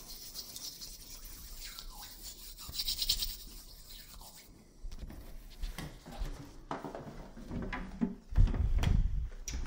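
A hand stroking and rubbing a cat's fur: soft scratchy rubbing, with a louder low rumble near the end.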